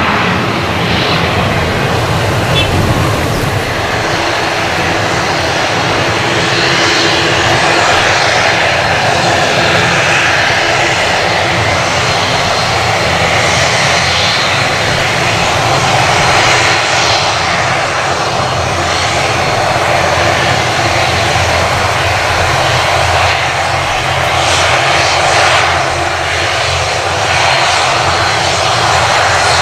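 ATR 72-600 turboprop airliner running at close range, a loud, steady drone of its engines and propellers with a constant hum in it.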